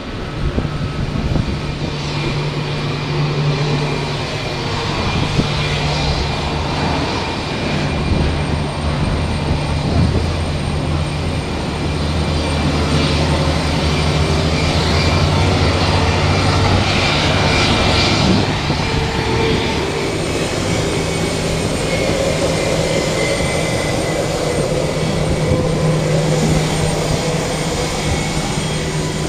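Jet aircraft turbines running on the apron: a steady high whine over a low hum.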